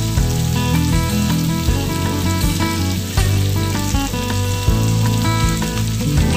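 Background music with a steady beat and a melody, over sliced onions sizzling in a wok.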